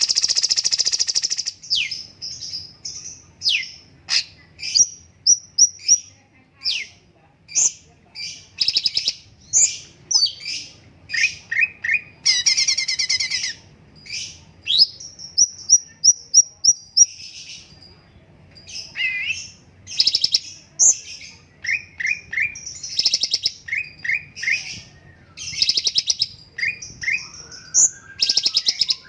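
A cucak cungkok songbird singing in long bouts of fast chirps, rattling trills and repeated high whistled notes, broken by short pauses.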